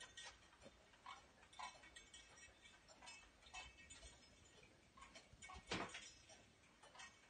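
Swinging pendulum wall clock with its dial in the brass gridiron pendulum, ticking faintly, roughly two ticks a second. One louder knock about six seconds in.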